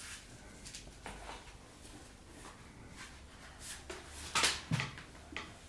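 Handling noises as an orthopaedic shoe is worked onto a foot fitted with a below-knee orthosis: scattered rustles and light knocks, with a louder scrape and a thump about four and a half seconds in.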